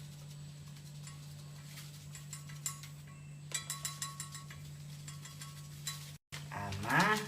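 Light clinks and taps of kitchen utensils and dishes over a steady low hum, with a quick cluster of clinks in the middle. Near the end, after a brief dropout, comes a short rising sound.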